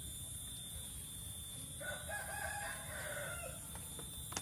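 A rooster crowing once, about two seconds in, for under two seconds. A single sharp click comes just before the end.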